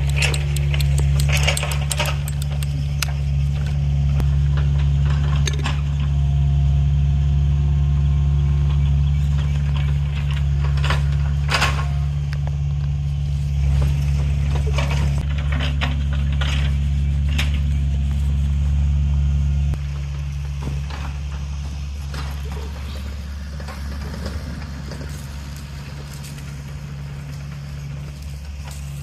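An engine running steadily at a constant speed, with scattered metallic clanks and rattles. About twenty seconds in, the engine sound drops and becomes quieter and rougher.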